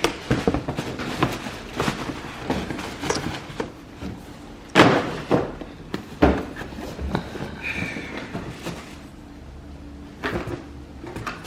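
Cardboard shoe boxes and packaging being handled during unboxing: a run of knocks and clatter, with a loud thump about five seconds in and another a second later.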